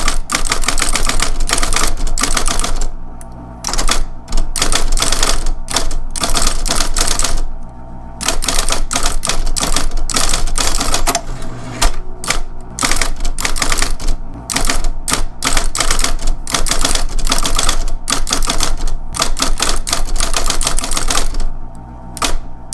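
Electric typewriter typing: keys striking in fast clattering runs, broken by a few short pauses, over the steady hum of its running motor.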